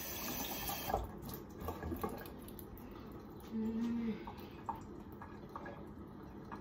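Kitchen tap running with a bright hiss that shuts off about a second in, followed by scattered light knocks and clatter of things being handled on the worktop. A short low hum comes a little past the middle.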